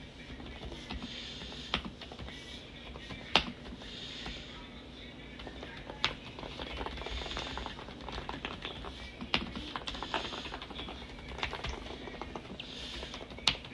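Typing on an EPOMAKER TH108 mechanical keyboard fitted with Sea Salt Silent switches: a run of soft keystrokes with a few louder clacks scattered through.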